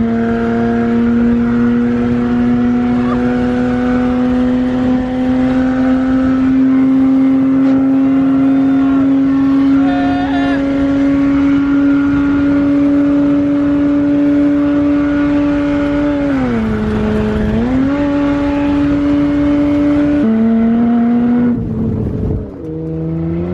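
Mitsubishi Eclipse's engine held at high revs under hard driving, its pitch climbing slowly for about sixteen seconds, dipping briefly, then dropping around twenty seconds in and falling away near the end.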